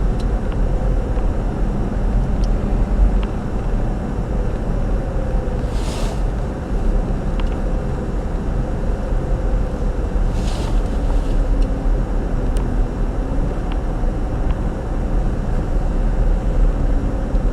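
Steady low rumble and road noise of a car driving, heard inside the cabin, with two short hissing swishes about six and ten seconds in.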